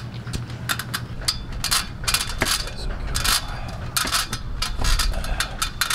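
Irregular light metallic clinks and knocks, many in quick succession, over a steady low hum.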